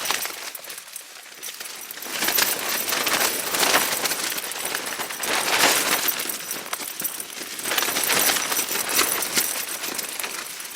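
Strong wind gusts buffeting a Tarptent StratoSpire 1 tent, the fabric flapping and crackling hard. The noise swells and eases in surges every couple of seconds.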